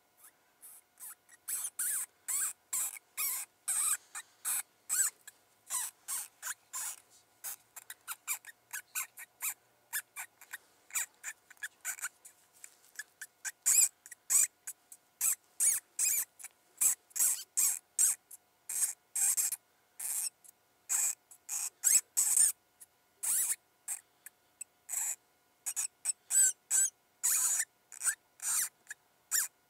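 Predator call playing a prey-in-distress sound: a rapid, uneven series of short, high-pitched squeaks, two or three a second, getting louder about halfway through.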